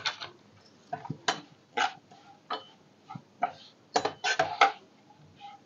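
Stainless-steel slotted spoon stirring grated coconut frying in ghee in a non-stick kadhai: a string of short scrapes and taps against the pan, with several in quick succession about four seconds in.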